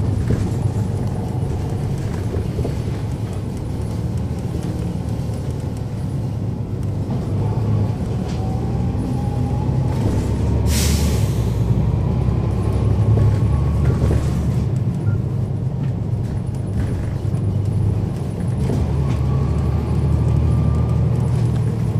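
A 2012 NABI 40-SFW transit bus heard from on board, its Cummins ISL9 inline-six diesel running with a steady low drone and a faint whine that rises slowly in pitch for several seconds, then again near the end. About eleven seconds in there is one short hiss of air from the bus's air system.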